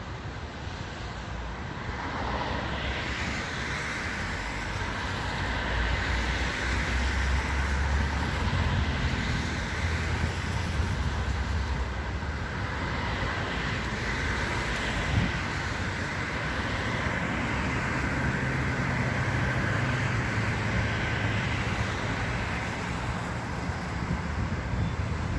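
Metra commuter train rolling past: steady rumble of the diesel locomotive and wheels on the rails, growing louder about two seconds in and then holding steady.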